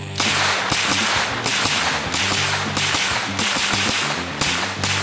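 Uzi carbine fired in a steady string of about nine single shots, roughly two a second, each crack ringing out briefly.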